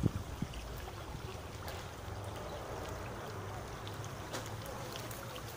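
Shallow river water running and rippling steadily, with a few short knocks near the start.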